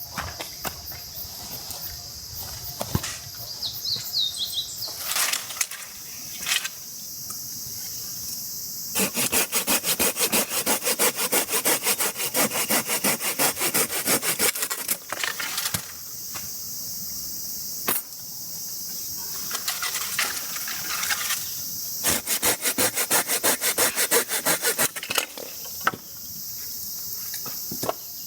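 Hand pruning saw cutting through firewood, in several runs of quick, even back-and-forth strokes with short pauses between them.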